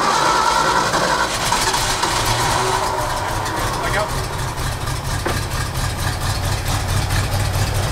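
The Ford FE big-block V8 of a 1972 Ford C600 truck idling steadily on its freshly rebuilt Motorcraft 2100 two-barrel carburetor.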